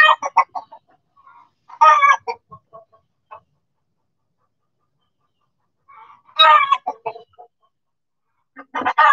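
Chickens clucking and squawking: four loud bursts of rapid, pitched calls, each under a second long, with a longer gap in the middle.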